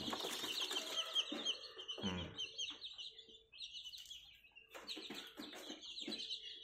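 Young native chicken chicks peeping: many rapid, high, downward-sliding peeps. They thin out in the middle and pick up again near the end.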